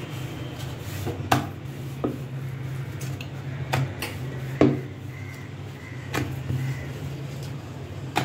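Wooden rolling pin rolling out semolina dough on a round rolling board, with several sharp knocks as the pin and dough are set down and lifted, over a steady low hum.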